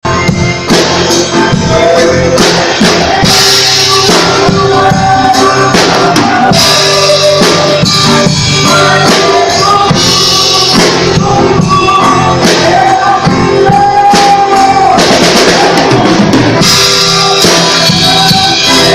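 Music with a drum kit and a singing voice: a song with a steady drum beat under a sung melody.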